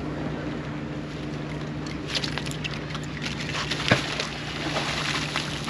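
A round fishing magnet on a rope is thrown out and splashes into the harbour water about four seconds in, after a flurry of light clicks and rustles as the rope runs out. A steady low hum runs underneath.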